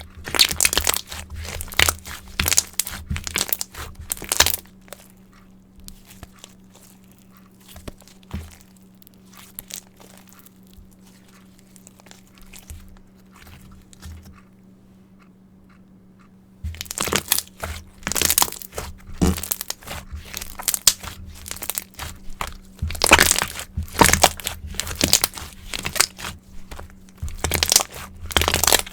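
Mirror slime being worked by hand, giving dense crackling and popping clicks. The clicking thins to a few faint pops for several seconds in the middle, then starts again thick and loud about 17 seconds in.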